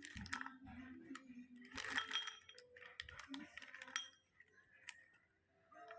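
Light clinking and rustling from handling the chocolate box and its packaging, with a few sharp clicks, dying down to quiet for the last couple of seconds.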